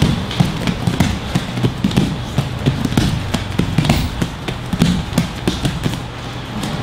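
Bare feet thudding and slapping on padded gym mats in quick agility-ladder footwork, several irregular footfalls a second.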